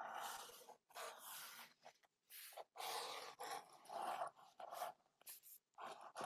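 Ink pen drawing on paper: a quick, irregular series of short scratchy strokes, each about half a second long, with brief pauses between them.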